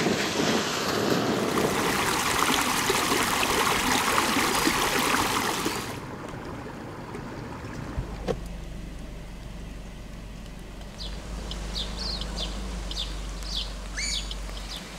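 Steady rushing of wind and water that cuts off about six seconds in, then a quieter background with a low hum and a small bird chirping several times near the end.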